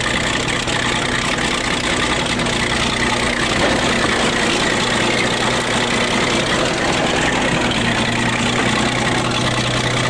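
Crawler bulldozer's diesel engine running steadily as the machine drives onto a car and crushes it.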